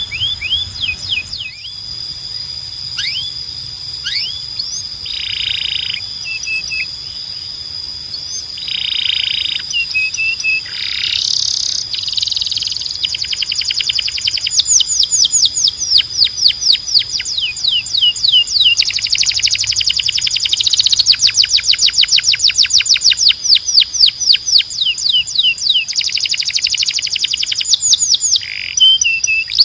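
Domestic canary singing. It opens with a run of falling whistled notes and short buzzy phrases, then goes into long, fast trills of rapidly repeated notes that get louder from about halfway through.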